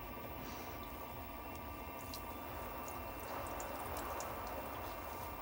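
Wet clay squishing under slippery hands on a spinning electric potter's wheel, over the wheel motor's steady hum. The clay is being pressed down to centre it, and it is still wobbling off-centre. The sound grows a little louder about three seconds in.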